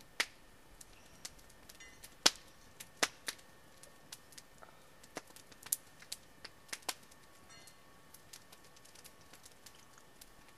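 Scattered sharp clicks and taps at irregular intervals, roughly one or two a second, with the loudest about two seconds in, over quiet surroundings.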